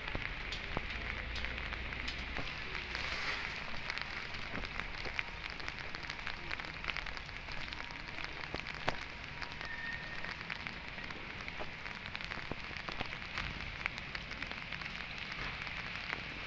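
Steady rain falling on a wet cobblestone square: an even hiss scattered with many small ticks of individual drops.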